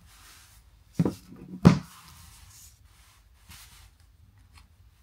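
Postcards and a pen being handled at a table: soft paper rustling and scratching, with two sharp knocks about a second in, the second one louder.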